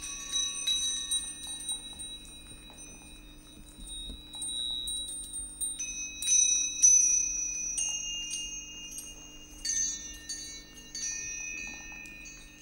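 High metallic chimes struck one after another, each note ringing on long, several pitches overlapping; the strikes are loudest near the middle. A faint steady low hum runs beneath.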